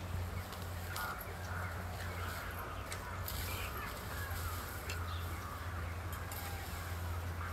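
Birds calling in the background over a steady low hum, with a few light clicks of a spoon in a small bowl.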